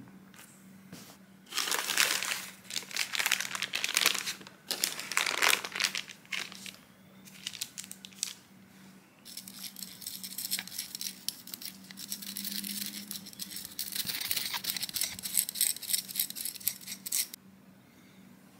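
Baking paper crinkling and rustling in loud bursts as it is peeled away from the sides of a chocolate tart. About nine seconds in, a denser, fast crackling rustle follows and lasts for about eight seconds.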